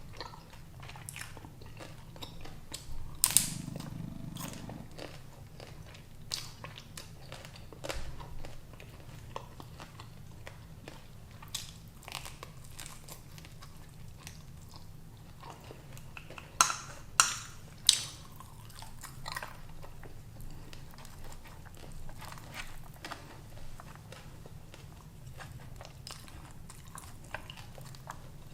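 Close-miked chewing and crunching of Sichuan prawns in their shells, with scattered crisp crunches; the loudest comes about 3 seconds in, and three sharp ones come together about 17 seconds in. A low steady hum runs underneath.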